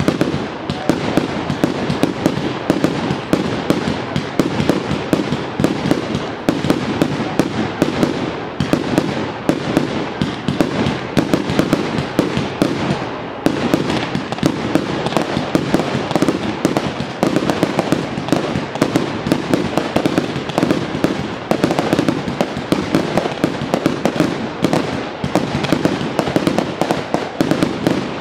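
Fireworks firing in a dense, continuous barrage: rapid bangs and crackling bursts following one another several times a second, with no pause.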